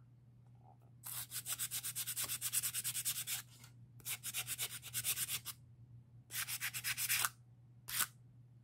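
Sandpaper wrapped around a stick rubbed quickly back and forth against a driftwood branch to smooth it: three runs of fast, even sanding strokes, then one short stroke near the end.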